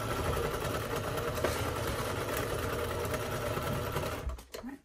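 Brother domestic sewing machine running steadily at speed, sewing a zigzag stitch through layered cotton, then stopping near the end.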